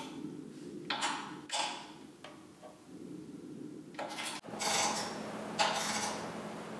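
Hand ratchet wrench tightening bolts on a metal table frame: several short bursts of ratchet clicking as the handle swings back and forth, with light metal-on-metal clinks.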